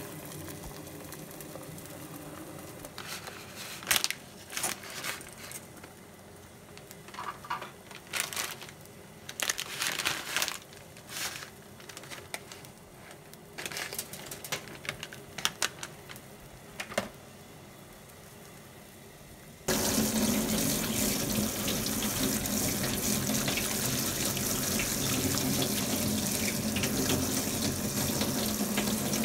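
Scattered knocks and clicks of kitchenware over a low steady hum, then, about two-thirds of the way in, tap water suddenly starts running steadily onto cooked noodles being rinsed by hand in a metal colander. The running water is the loudest sound.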